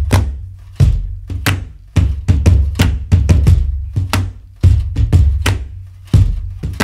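Background music with a prominent drum beat and deep bass hits.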